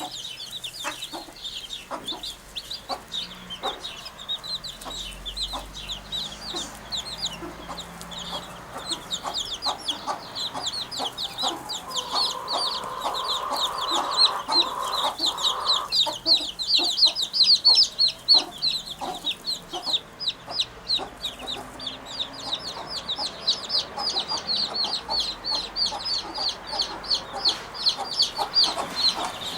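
Birds chirping rapidly and continuously, many high notes a second, with scattered short clicks and a louder stretch of chirping in the middle.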